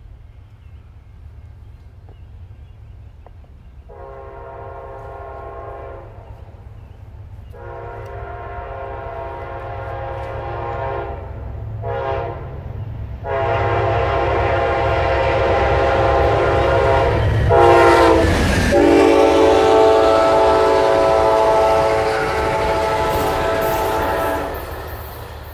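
Amtrak passenger train's horn sounding the grade-crossing pattern of two long blasts, a short one and a final long blast, over the rising rumble of the approaching train. The horn's pitch drops about two-thirds of the way through as the locomotive passes, and the rumble and clatter of the passenger cars follow.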